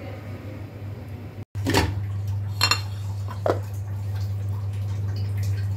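Metal cookware knocking and clinking: three knocks about a second apart, the middle one a ringing metallic clink, as the aluminium momo steamer pot is handled, over a steady low hum.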